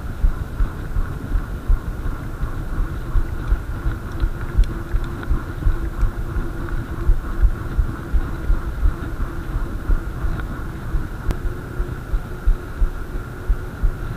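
Mountain bike ridden on asphalt: uneven low wind buffeting and thumps on the body-mounted camera's microphone, over a steady hum from the knobby tyres rolling on the road.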